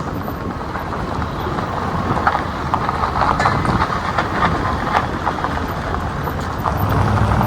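Suburban driving on a rough road: steady road rumble with irregular ticking and rattling, and a low engine hum that comes up near the end.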